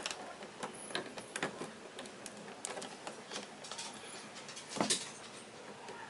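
Insulated electrical wire being handled and moved around a junction box: faint rustling and scattered small clicks, with one louder knock about five seconds in.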